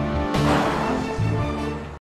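Background music with a steady bass line and a sudden bright accent about a third of a second in; it cuts off abruptly at the end.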